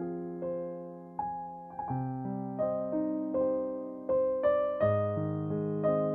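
Background music: slow solo piano, notes struck one or a few at a time and left to ring out over held low notes.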